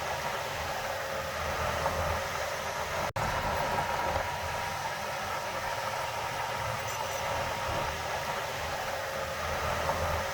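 Heavy earthmoving machinery running steadily, a continuous engine drone with a low rumble under it. The sound drops out for an instant about three seconds in.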